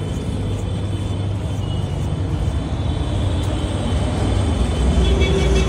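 Steady low rumble of road traffic. A higher, pulsing tone joins near the end.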